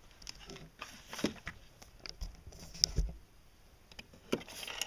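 Hands moving dolls and toy camping gear: a scatter of light knocks, clicks and rustles, some with a soft thud.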